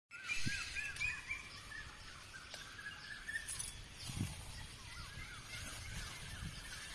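A bird calling in quick runs of short, repeated up-and-down notes, once at the start and again near the end, over a low rumbling background with two dull thumps.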